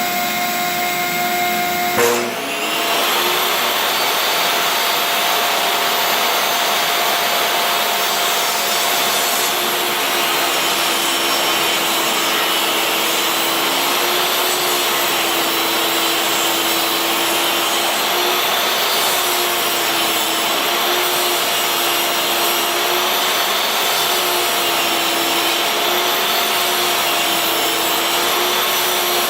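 Table saw running and taking a 1/8-inch jointing pass off a board through a jig over the fence: a steady whine over a rushing cutting noise. About two seconds in there is a click and the pitch dips and climbs back, then holds with a slight wavering.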